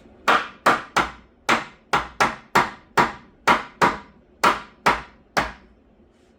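Hammer nailing wooden framing: about thirteen sharp blows at two to three a second, ending about five and a half seconds in.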